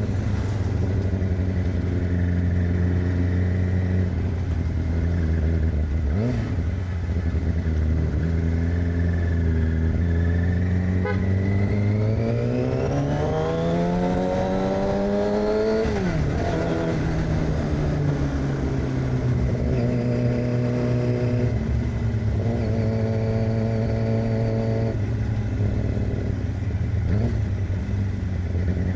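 2006 Yamaha R6's inline-four engine through an aftermarket AR exhaust, running at steady revs, then revving up steadily from about ten seconds in and dropping sharply at about sixteen seconds, as on a gear change or closing the throttle, before settling at lower revs.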